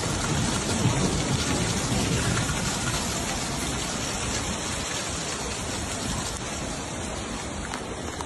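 Heavy storm rain pouring down in a steady hiss, with a low rumble in the first few seconds that slowly eases off.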